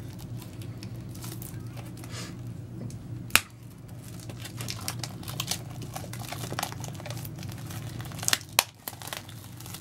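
Plastic shrink-wrap crinkling and tearing as it is picked at and peeled off a Blu-ray steelbook case, over a steady low hum. A sharp click stands out about a third of the way in, and two more come close together near the end.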